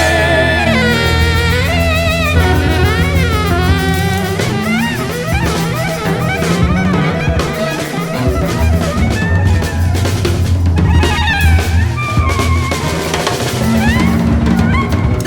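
Background music with a drum kit and bass under a wavering melodic lead line.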